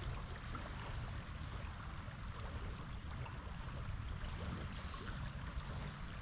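Shallow river flowing and rippling, a steady wash of water, with a low rumble of wind on the microphone.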